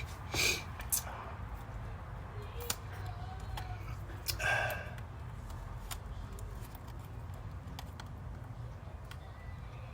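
Handling of small laptop parts and tools: a few light clicks and taps, with a brief louder scrape about four and a half seconds in, over a steady low hum.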